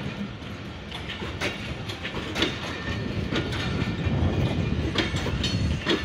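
Passenger coaches of a departing train rolling past, the wheels clacking over rail joints at irregular intervals. A low rumble grows louder through the second half.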